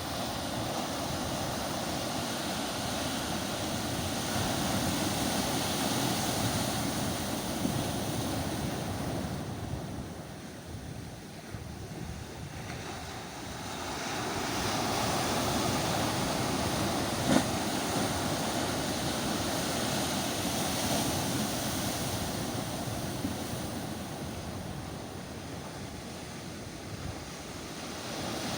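Sea waves washing on a shore, the surf swelling and easing in slow surges: it eases about ten seconds in, builds again, and eases near the end. A single brief tick sounds about two-thirds of the way through.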